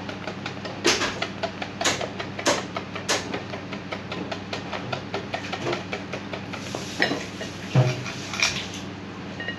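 Wire whisk beating eggs in a glass bowl: rapid, irregular clicking and clinking of the wires against the glass, with a few louder knocks.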